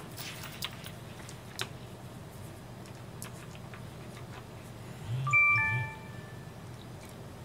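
Faint clicks and light rustling of leather being handled, then about five seconds in a short two-note descending electronic chime, a "ding-dong" that fades within about half a second.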